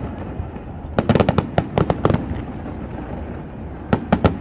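Fireworks display: a rapid run of sharp crackling bangs about a second in, lasting about a second, then a few more bangs near the end, over a steady low rumble.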